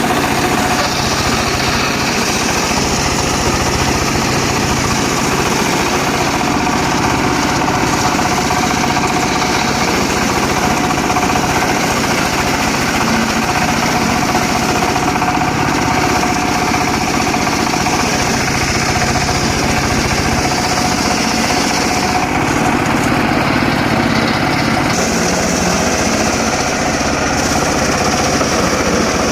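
Engine-driven mobile circular sawmill running steadily while sawing teak wood.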